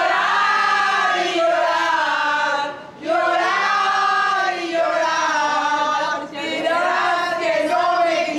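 A group of women singing together loudly in long held phrases, with short breaks about three and six seconds in.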